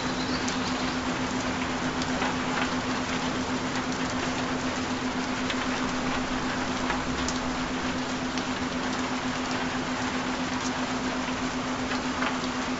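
Steady rain, an even hiss with scattered drop ticks, over a constant low tone that does not change.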